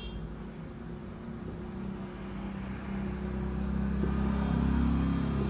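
Steady high insect chirring in the background, with a low rumble that grows louder from about three seconds in.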